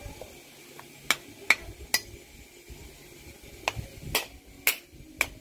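Sharp knocks or taps, about two a second, in two short runs: three about a second in, then four more after a pause.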